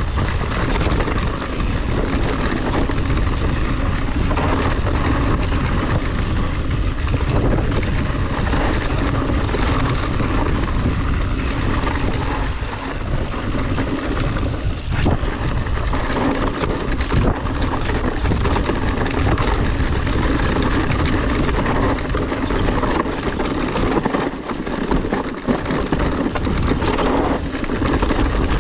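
Wind rushing over the microphone, mixed with the rumble and rattle of a mountain bike rolling fast down a dirt trail.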